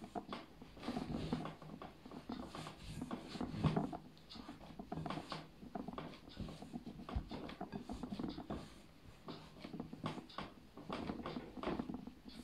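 Hands kneading soft, wet flour dough in a glass bowl: an irregular run of soft squishing strokes and light clicks, several a second, with no steady rhythm.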